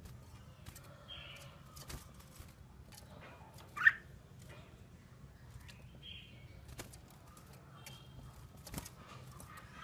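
Red-whiskered bulbul giving one short, sharp rising chirp about four seconds in, with a couple of fainter chirps around it and a few faint clicks between calls.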